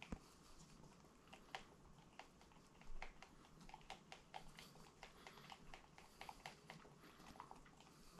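Faint, irregular clicks and taps of a stir stick working liquid resin by hand in a plastic mixing cup.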